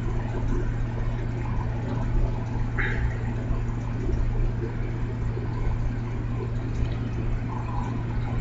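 Steady low hum with hiss, the background noise of the recording setup, with a brief higher sound about three seconds in.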